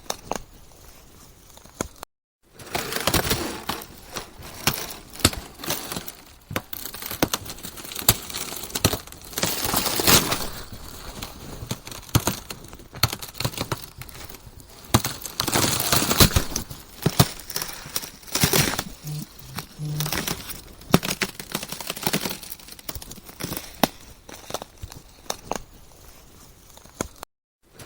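Ice cracking: a dense, irregular run of sharp cracks and crackles with louder crunching swells, broken by two brief dead-silent cuts, one about two seconds in and one near the end.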